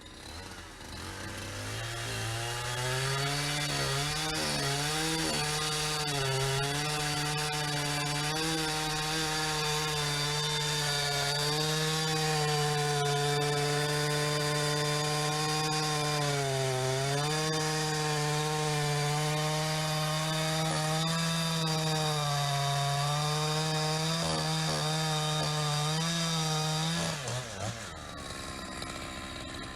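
Chainsaw cutting an oak log: it revs up over the first few seconds and runs near full throttle, its pitch dipping briefly now and then as the chain loads in the wood. The engine drops off and stops about 27 seconds in.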